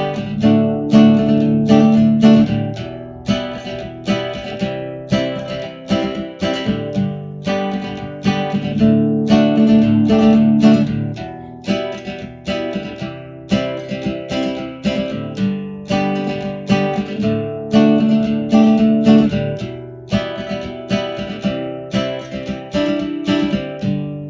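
Custom cutaway nylon-string classical guitar played fingerstyle: plucked and strummed chords in a steady rhythm, the chord changing every couple of seconds.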